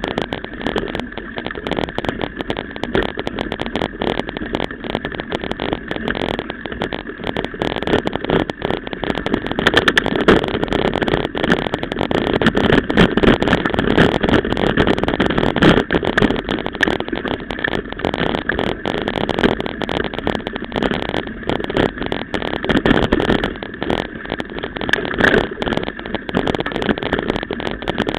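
Mountain bike ridden fast over a rough forest dirt trail, heard through a bike-mounted camera: a continuous clattering of rattles and knocks from the bike and mount jolting over the ground, mixed with tyre and wind noise. It grows louder from about ten seconds in.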